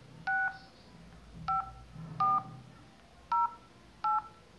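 Phone keypad touch tones (DTMF): five short dual-tone beeps at uneven intervals as digits are keyed into an automated phone menu.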